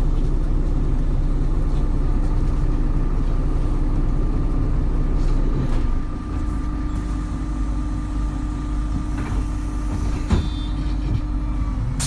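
MAN Lion's City hybrid city bus running, heard from on board: a steady low rumble with a held whine over it. It gets a little quieter about six seconds in, and there is a single click near the end.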